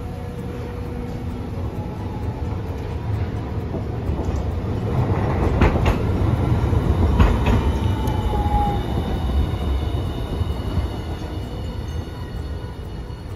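Hiroden Green Mover LEX low-floor tram passing close by on street track: a rumble that builds and fades, two sharp clacks from the wheels near the middle, and a slightly falling whine as it goes past.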